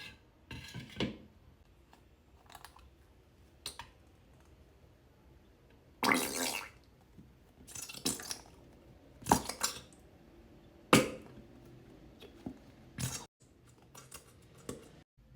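Irregular clinks, knocks and scrapes of utensils and containers being handled while mixing slime ingredients, about a dozen separate sounds, some of them a second or so long.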